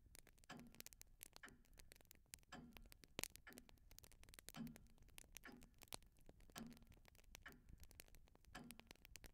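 Faint ticking clock, an even tick about once a second, with fainter light clicks between the ticks.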